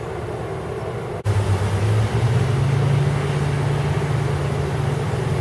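Steady rush of floodwater from a creek over its banks. After an abrupt break about a second in, a steady low engine drone from idling fire trucks comes in over the water noise and steps up in pitch about two seconds in.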